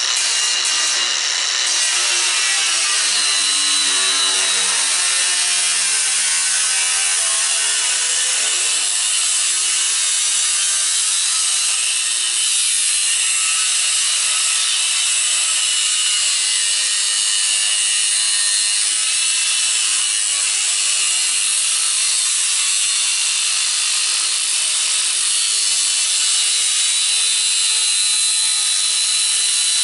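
Hercules 20-volt brushless cordless angle grinder with a cutting wheel cutting through metal: a steady, loud grinding hiss, the motor's pitch wavering slightly as the wheel is loaded in the cut.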